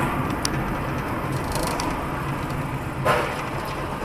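Steady road and engine noise heard from inside a moving car. About three seconds in comes a sudden crunch from a car collision ahead.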